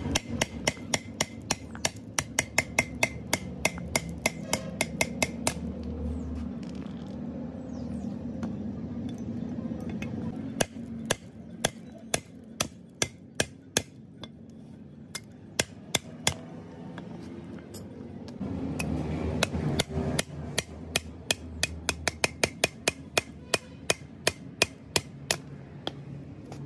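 Hammer striking a tube-style socket set over the valve spring retainers of a cylinder head, rapid metallic taps at about three a second in runs, with a pause in the middle, working along the row of valves to knock the valve collets loose for removal.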